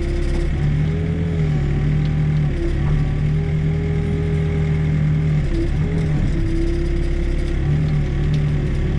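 Backhoe's diesel engine running at working speed while digging, a steady hum whose tone breaks off and shifts slightly in pitch every second or two as the load changes.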